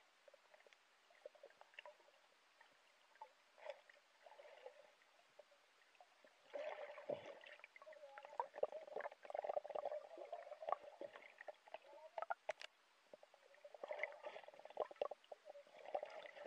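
Muffled underwater sound heard through a camera's waterproof housing: faint gurgling water with scattered crackles and knocks as the line is hauled up, growing louder about six seconds in.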